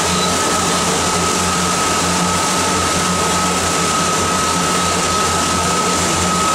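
Sightseeing boat's engine running steadily underway: a low, even drone with a thin, steady high whine, over a constant rush of water and wind.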